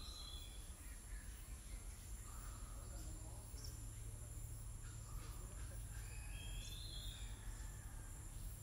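Faint outdoor ambience: a steady high insect drone over a low rumble, with a few faint distant calls.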